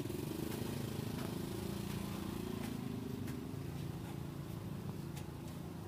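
An engine running steadily at low revs, easing off slightly toward the end, with a few faint scattered clicks.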